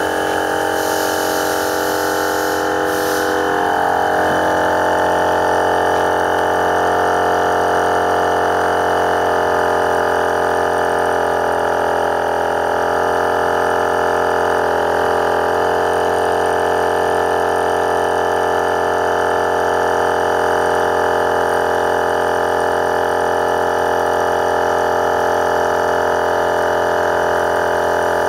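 Portable 12V twin-cylinder electric air compressor running steadily under load as it inflates a car tyre, its pitch and level holding even.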